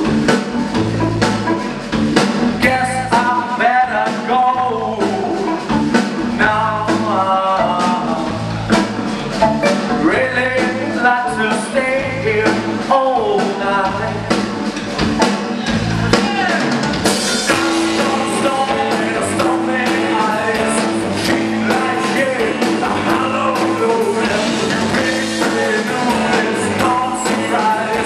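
Live blues-rock band playing loud, with drum kit and electric guitar. A harmonica played into the vocal microphone wails over the band in the first half. Later the band plays on under a sung vocal, with the cymbals brighter.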